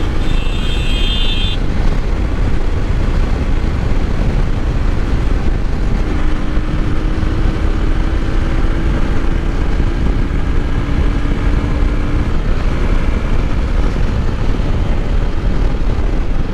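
Wind rushing over the microphone on a motorcycle ridden at highway speed, about 80 km/h, with the bike's engine running steadily underneath.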